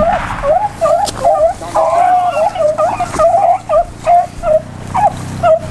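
Rabbit hounds in steady chase, giving short, sharp yelps about three times a second, with the voices sometimes overlapping.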